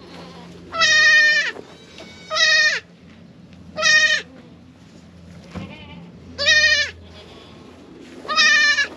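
Kiko goat bleating five times, each call loud and about half a second long, with short pauses between.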